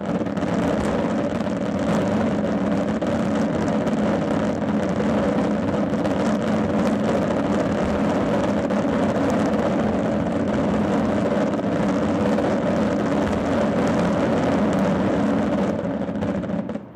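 Fireworks closing barrage: many shells bursting at once, merging into one continuous loud rumble with crackle running through it, then cutting off suddenly near the end.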